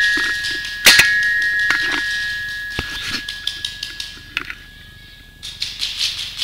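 A paintball marker, with the camera mounted on it, fires one loud, sharp shot about a second in, over a high ringing that fades out past the middle, with a few lighter knocks after. Near the end come quick crunching steps on sandy ground and rattling gear.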